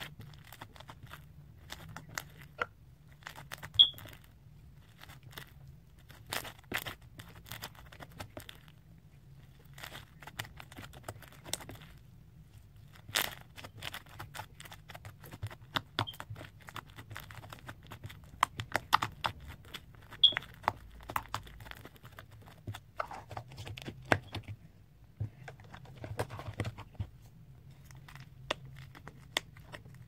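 Slime being stretched, squeezed and pressed by hand, giving a run of irregular sharp crackles and pops over a faint low hum.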